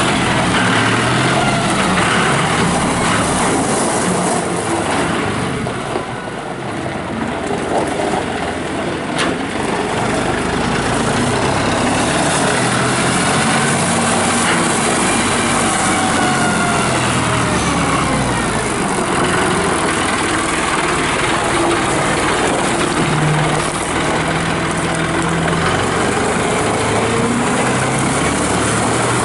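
John Deere 5045D's turbo diesel engine running under way, with a whine that rises and falls in pitch over its steady sound.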